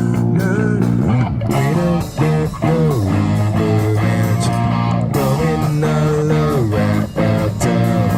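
A live rock band plays an instrumental passage: electric guitar with notes bending up and down over a held bass guitar line. The sound briefly drops twice, about two seconds in and about seven seconds in.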